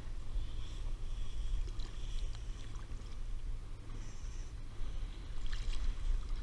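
Wind buffeting the microphone over water lapping at a kayak hull, with a short splash about five and a half seconds in as a ray is released by hand into the sea.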